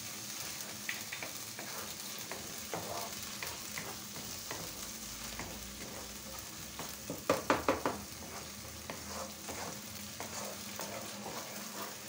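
A wooden spoon stirs and scrapes a thick tomato and onion sauce in a non-stick pan while it sizzles steadily over the flame: the spiced tomato base frying before water is added. About seven seconds in comes a quick run of four louder knocks of the spoon against the pan.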